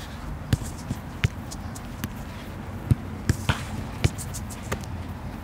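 A football being kicked back and forth on artificial turf: about seven sharp strikes and touches of the ball, spaced irregularly, some close together about three seconds in.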